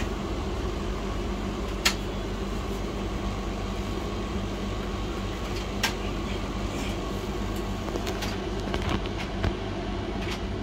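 Steady hum of fans and powered equipment on an electronics repair bench, with a few sharp clicks: one about two seconds in, another about six seconds in, and a small cluster near the end.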